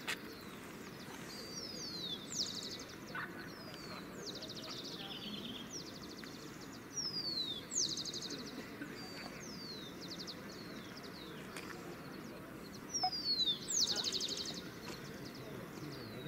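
A songbird singing the same short phrase over and over: a high whistle sliding down, then a fast buzzy trill. It sings about once every one to two seconds, loudest twice in the second half, over a steady low background murmur.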